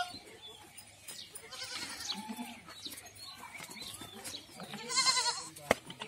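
Goats bleating in a pen, several short calls one after another, the loudest about five seconds in. A single sharp click follows it.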